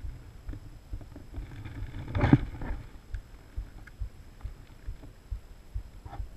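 Water sloshing and knocking against a kayak hull, with irregular low knocks and one louder whoosh about two seconds in.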